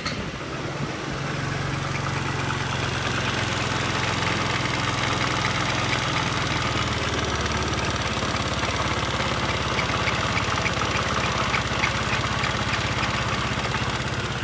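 Kymco Many 110 scooter's single-cylinder engine running steadily at idle, with a fast, light ticking over the hum.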